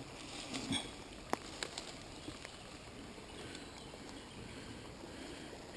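Faint steady flow of a small stream, with a few short sharp clicks in the first two seconds.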